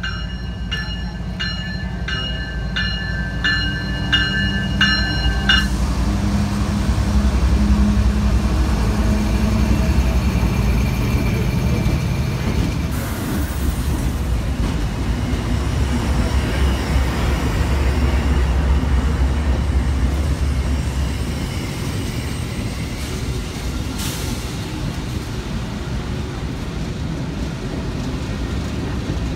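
CSX diesel freight locomotives, an ET44AH followed by SD40-2s, passing slowly at close range: engines rumbling and wheels rolling on the rail, loudest from about eight to twenty seconds in. A bell rings steadily, about two strikes a second, for the first five or six seconds, then stops.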